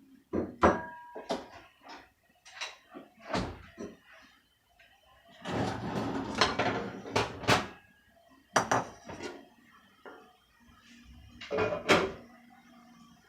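Cookware and utensils clattering: a string of knocks and clinks, one of them ringing briefly about half a second in, with a stretch of about two seconds of scraping around the middle.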